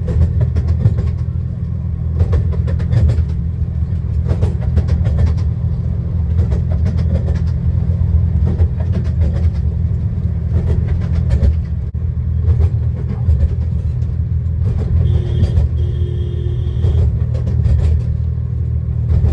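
Miniature railway train running along the track, heard from inside an enclosed carriage: a steady low rumble with frequent short clicks of the wheels over the rails. About fifteen seconds in, a short tone sounds twice.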